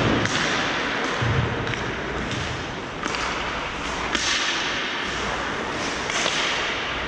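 Hockey game in play: a steady wash of rink noise with several sharp clacks and thuds of sticks, puck and boards.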